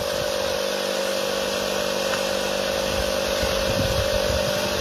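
A motor running steadily, a constant droning hum that holds one pitch.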